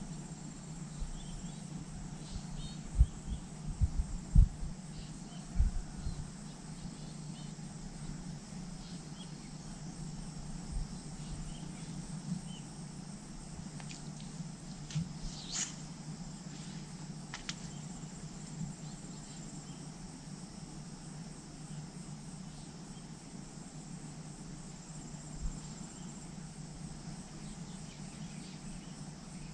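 Insects chirring steadily in waterside vegetation. A few low thumps come in the first six seconds, and a single sharp click comes about halfway through.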